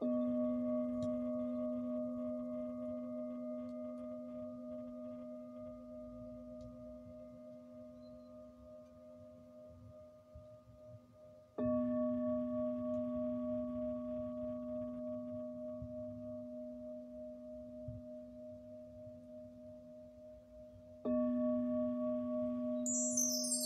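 A singing bowl struck three times, about ten seconds apart. Each strike rings out with a low hum and a pulsing higher overtone that slowly fades.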